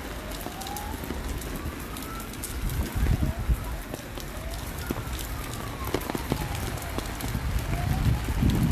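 Heavy rain falling, with many drops tapping close to the phone's microphone, and gusts buffeting the microphone about three seconds in and again near the end. A faint siren slides slowly up and down in pitch under the rain.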